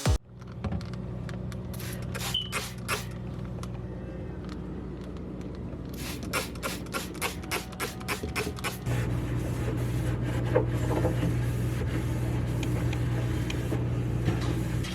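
Steady low hum, louder from about nine seconds in, with frequent light clicks, knocks and scrapes of kitchen items being handled.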